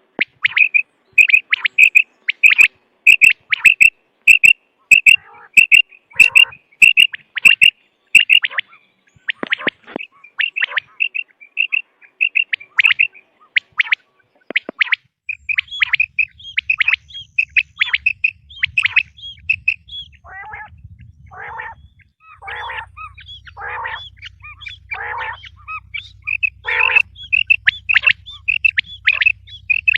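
Recorded quail (bateer) calls used as a hunting lure: short sharp notes repeated in quick runs, joined past the middle by lower, harsher calls, with a low steady hum underneath from about halfway.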